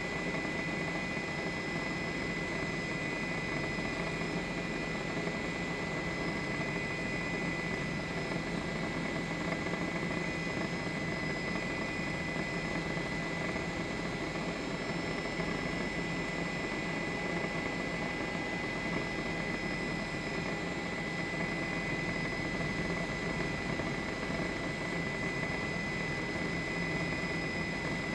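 Helicopter engine and rotor noise running steadily, with a high steady whine over it.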